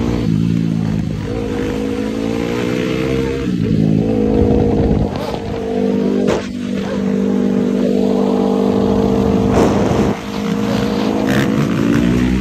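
Yamaha YFZ450R quad's single-cylinder four-stroke engine running hard under steady throttle. Its pitch climbs and dips a few times and holds level for several seconds in the middle.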